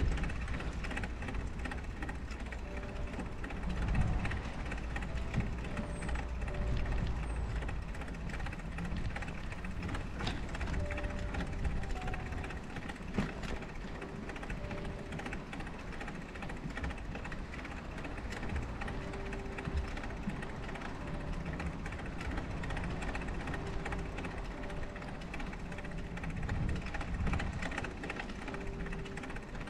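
Wind rumbling and buffeting on the microphone of a bicycle moving through a snowstorm, in uneven gusts. Faint soft background music with sparse held notes comes and goes underneath.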